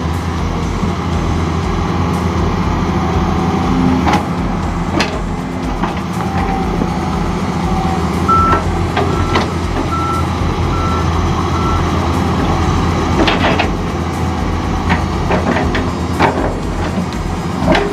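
Excavator's diesel engine running steadily under load while it digs, with scattered knocks and scrapes from the work. Midway a backup alarm beeps five times at an even pace.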